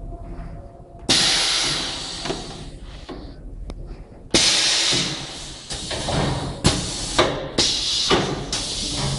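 Pneumatic system of a PVC single-corner welding machine venting compressed air: a sudden hiss about a second in and another about four seconds in, each fading over a second. Then comes a run of sharp clicks and short hisses as valves and cylinders actuate.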